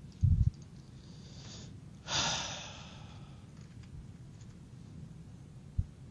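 A short low thump, then about two seconds in a person's breath out, a sigh that starts sharply and fades over about half a second, with a couple of faint low knocks near the end.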